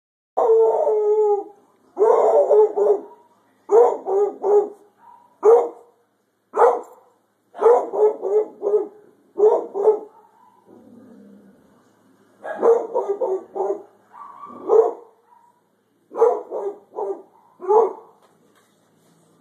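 Hound barking at a thunderstorm: loud volleys of barks, often three or four in quick succession, the first call drawn out longer, with short pauses between volleys.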